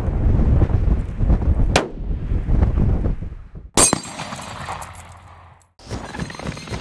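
Wind buffeting the microphone, with a single sharp crack about two seconds in. Near four seconds, a loud sharp hit of a bullet striking a steel plate target, followed by a high ringing from the plate.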